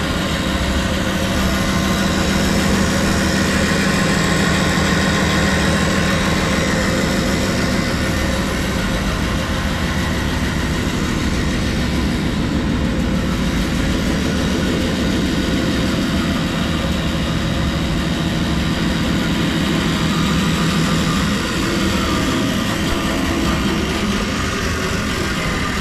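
Delta 28-651 20-inch vertical band saw with a single-phase 110 V motor, running with no load: a steady motor and blade-drive hum.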